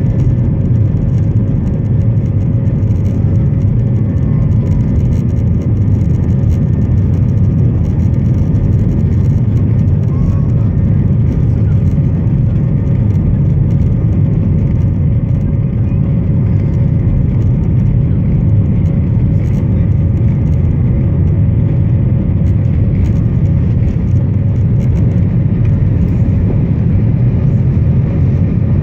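Airbus A320 on its take-off roll, heard from a cabin window seat over the wing: the jet engines at take-off power make a loud, steady rumble with a steady tone above it.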